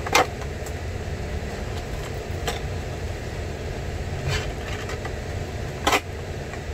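Cardboard toy box being opened by hand, with four short snaps and tears as the top flap and its seal come loose. The loudest come near the start and near the end. A steady low hum runs underneath.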